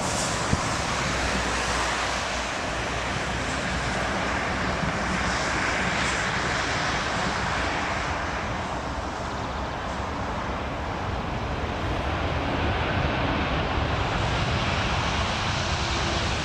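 Airliner jet engines running, a steady, loud noise that swells slightly and then eases.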